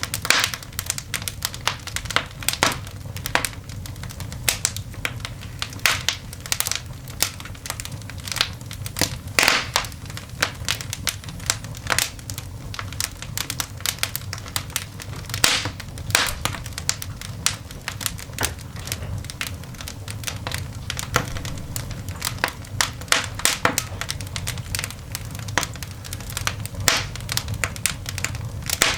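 Coal fire in a cast iron dog grate crackling and popping: irregular sharp snaps, some louder pops among them, over a low steady rumble.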